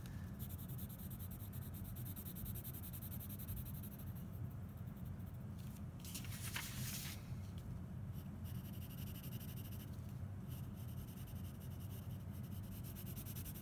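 Wooden No. 2 graphite pencil scratching softly on drawing paper as a box face is shaded in, over a low steady hum. About halfway through comes a brief louder rustle, the paper being shifted.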